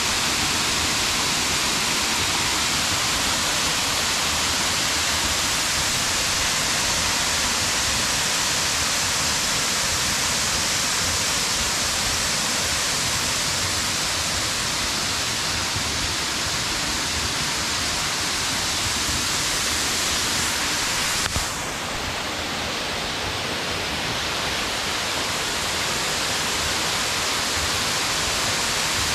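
Waterfall rushing steadily as its water pours over a rock ledge into the pool below, an even hiss heaviest in the higher range. A brief click about three-quarters of the way through, after which the rush is slightly quieter.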